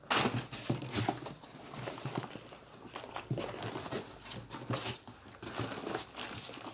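Plastic packaging crinkling and rustling as a set-top box is handled, an irregular crackle of many small clicks.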